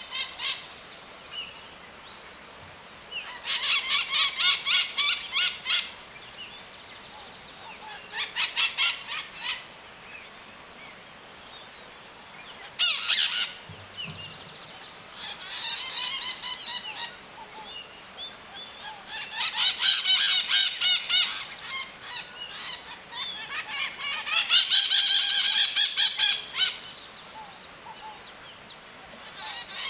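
White-eyed parakeets (maritacas) screeching: loud bouts of rapid, harsh, repeated calls, each a second or two long, come about every four seconds, with softer chattering calls between.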